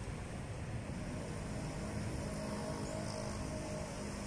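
A motor vehicle engine running steadily, heard as a low hum that comes in clearer from about a second and a half in, over a low rumble of wind on the microphone.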